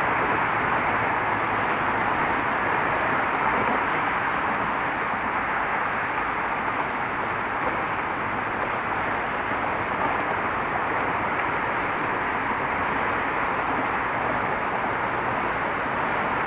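Steady rush of road traffic: many cars passing in an unbroken stream, with no single vehicle standing out.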